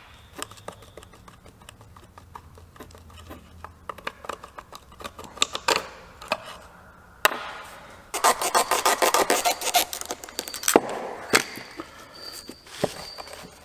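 Rusty metal spacers and old leather handle washers clicking and scraping against each other and the steel tang as they are worked off by hand. About eight seconds in comes a dense run of rapid scratchy clicks lasting a couple of seconds.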